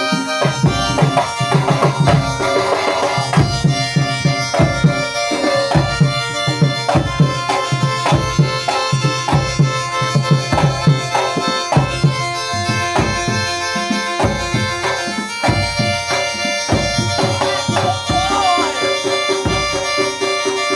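Traditional Javanese trance-dance music: hand drums beating a fast, driving rhythm under a sustained reedy wind-instrument melody.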